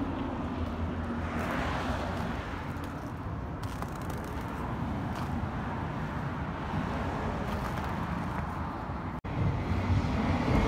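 Steady road traffic rumble, swelling about two seconds in, with a very brief dropout near the end.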